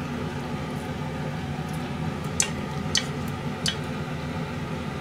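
A few light clicks of chopsticks against a metal saucepan as food is served out of it, over a steady kitchen hum.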